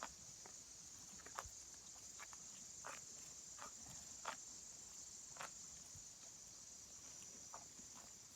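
Faint, steady chirring of field insects, with a dozen or so soft ticks and rustles scattered through it.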